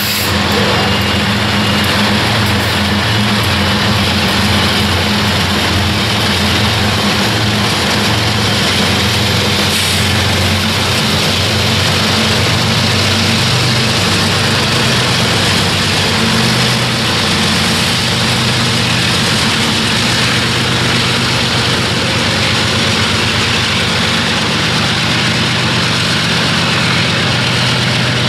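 Diesel freight locomotives running, a deep engine drone whose pitch shifts partway through, over a steady loud rushing noise.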